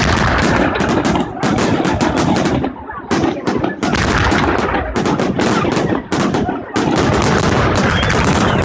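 Aerial firework shells of a batteria alla bolognese display bursting in rapid succession, a dense barrage of bangs running into one another with only a few brief dips.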